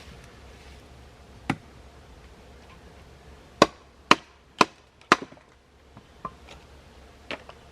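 Kukri chopping wood: one blow, then four sharp strikes about half a second apart, then a couple of lighter chops near the end.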